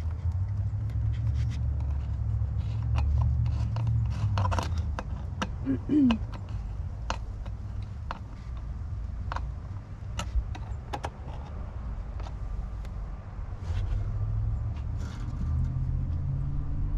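Scattered light clicks and scrapes of hands and hand tools working on intake parts in a car's engine bay, over a steady low rumble. About six seconds in there is a brief pitched sound that slides up and down, the loudest moment.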